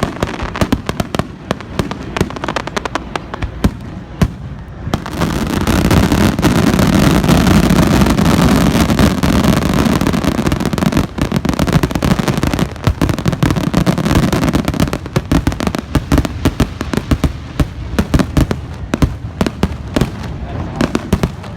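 Fireworks display: a rapid string of bangs and crackles, becoming a dense, near-continuous barrage about five seconds in that thins out again about fifteen seconds in.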